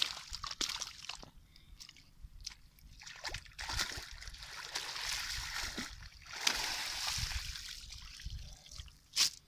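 Bare feet sloshing and splashing through shallow, muddy pond water in uneven steps, with one sharper, louder slap near the end.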